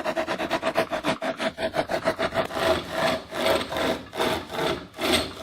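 Hand-pulled pocket chainsaw chain rasping back and forth through wood. The strokes are quick and even, several a second, then slow to longer strokes about two or three a second from about halfway.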